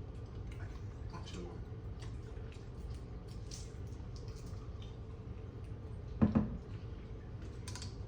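Wet eating and shell-handling sounds from mussels and shrimp in sauce: faint scattered clicks and squelches over a steady low hum, with one louder knock about six seconds in.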